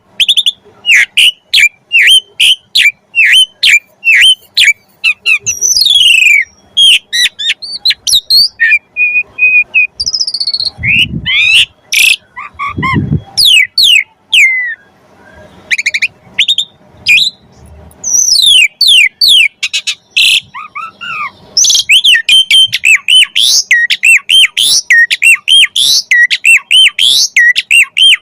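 Asian pied starling (jalak suren) singing a loud, fast string of whistled notes that sweep up and down in pitch. Two rougher, lower sounds come near the middle, and the song grows denser with quick looping notes toward the end.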